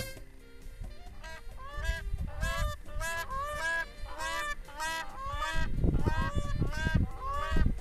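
Several black crowned cranes giving short honking calls in quick succession, a few a second and overlapping. A low rumble joins in about two-thirds of the way through.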